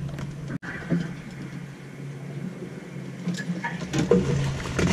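A steady low engine-like hum, with scattered knocks and clicks over it.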